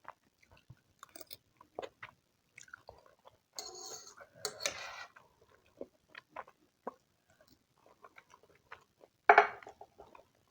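Close-miked eating sounds: chewing with wet mouth clicks, a longer noisy stretch of chewing a little past three seconds in, and one louder sharp crunch or bite about nine seconds in.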